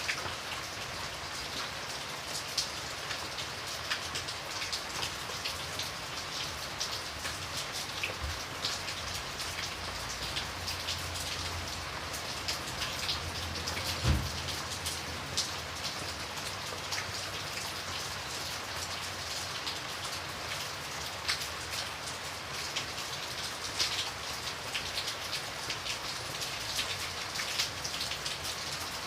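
Steady rain falling on a hard surface, with many individual drops ticking through the hiss. A low rumble swells through the middle, with a single dull thump about halfway through.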